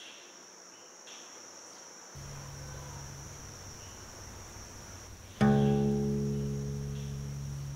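Suspense film score: a low drone comes in about two seconds in, then a sudden loud low note strikes about five seconds in and rings slowly away. A steady high-pitched thin tone sounds underneath throughout.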